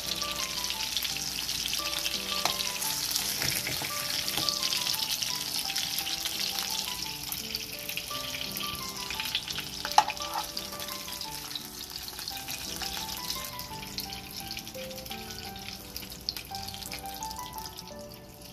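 Hilsa fish heads sizzling in shallow oil in a frying pan, with a spoon scraping through them and one sharp clink about ten seconds in as the pieces are lifted out. The sizzle fades toward the end.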